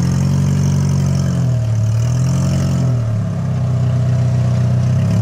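Rock-crawling buggy's engine working under load on a steep rock climb, its revs rising and falling twice, then settling lower and steady.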